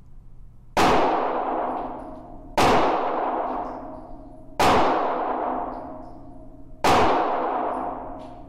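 Four 9mm gunshots about two seconds apart, Ammo Inc. Streak full-metal-jacket rounds fired in an indoor range. Each crack is followed by a long echoing decay from the range.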